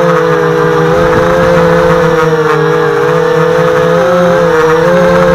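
HobbyKing FPV250 quadcopter's four brushless motors and propellers whining in flight, heard close from the onboard camera. Several near-together tones drift up and down against each other as the throttle and attitude change.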